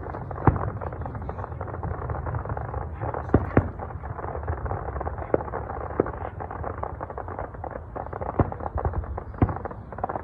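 Fireworks display bursting: about seven sharp bangs at uneven intervals, over a steady low rumble.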